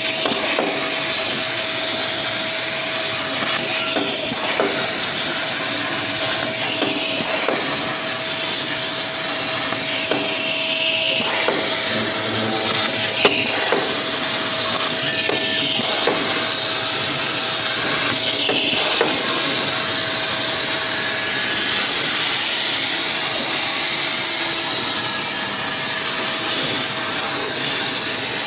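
CNC plasma cutter's torch arc cutting sheet steel, a loud steady hiss with a steady whine held under it. It breaks off briefly and clicks several times in the first half.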